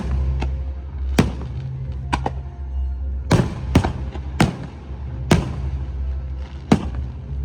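Fireworks shells bursting overhead: about eight sharp bangs, roughly one a second, over a steady low rumble.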